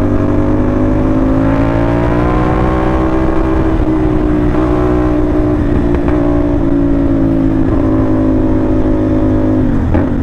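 CFMoto 450NK's 270-degree-crank parallel-twin engine running through a short single SC Project-copy slip-on exhaust as the bike is ridden. The engine note climbs gently over the first three seconds or so, holds, then drops near the end.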